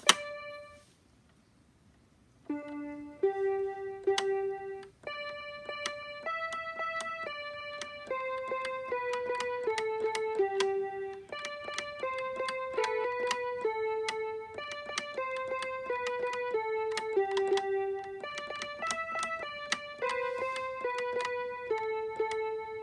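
Electronic toy baby piano playing a simple tune, one clear note at a time, about one or two notes a second, in short phrases that mostly step downward. The tune starts about two and a half seconds in, after a brief near-silent pause.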